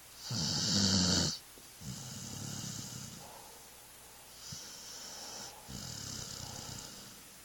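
A sleeping dog snoring: slow breaths with a low fluttering rattle and a breathy hiss, about four in a row, the first the loudest.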